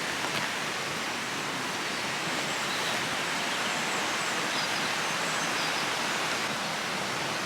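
River water rushing over rocks, a steady even hiss, with a few faint high chirps above it.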